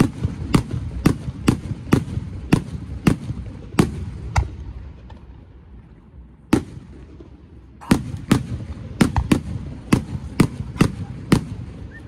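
Fireworks display: shells going off in a rapid string of sharp bangs, about two a second, easing into a lull broken by a single bang near the middle, then a fast volley again near the end.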